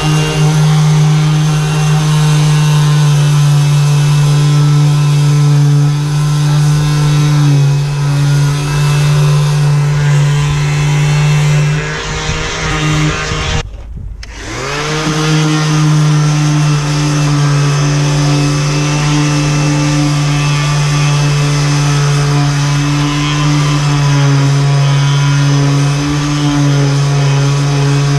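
Electric motor running steadily at one pitch. About halfway it cuts out for a moment and then spins back up to speed.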